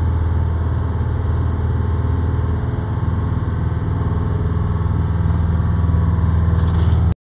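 A boat's engine running steadily with a low, even hum, cutting off suddenly near the end.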